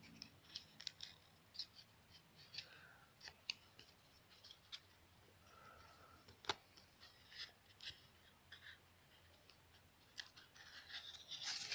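Faint, scattered clicks and light scrapes of trading cards and their foil pack wrapper being handled: cards slid and flicked against each other, with one sharper snap about six and a half seconds in.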